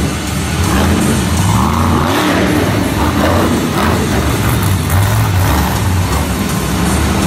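Monster truck's supercharged V8 engine revving up and down again and again as the truck drives a freestyle run, echoing in a large arena.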